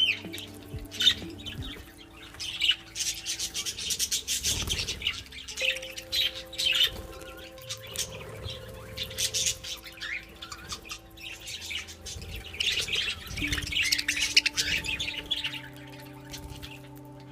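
Budgerigars chattering and chirping continuously in quick, irregular squawks and tweets, over background music of held chords.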